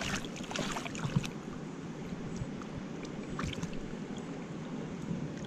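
Shallow river water running, with splashing from a trout in a landing net held in the water during the first second or so, and another short splash about three and a half seconds in.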